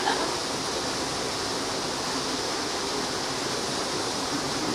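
Steady, even rushing background noise with no distinct events, with a brief snatch of distant voices right at the start.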